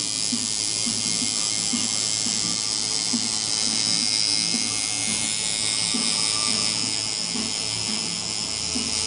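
Tattoo machine buzzing steadily as the needle works into the skin, with music playing underneath.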